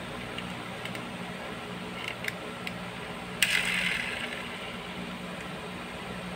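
Pull-back motor of a Kinsmart 1:36 Subaru Impreza WRC die-cast model let go while the car is held upside down: a few small clicks, then a sharp click about halfway through and a whirr from the freely spinning wheels that fades over about a second. A steady low hum runs underneath.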